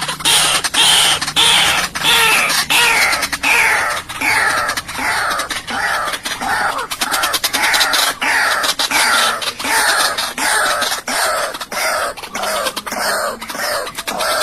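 White-breasted waterhen calling: a long run of harsh, croaking calls, each falling in pitch, repeated about twice a second.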